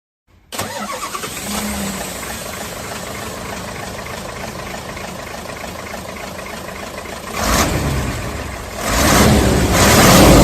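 A motor running, starting abruptly about half a second in, with two louder surges near the end.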